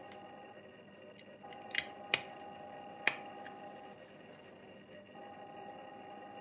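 Small plastic scale-model parts clicking in gloved fingers: three short sharp clicks about two and three seconds in, over a faint steady hum.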